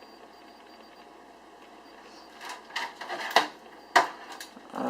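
Faint steady hiss of PC case fans, then from about two seconds in a string of sharp clicks and knocks as a phone and hands bump against the case's panels, two of the knocks much louder than the rest.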